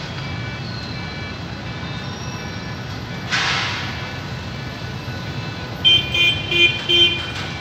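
A horn toots four short times in quick succession near the end, over a steady low street rumble. A brief hiss sounds about three seconds in.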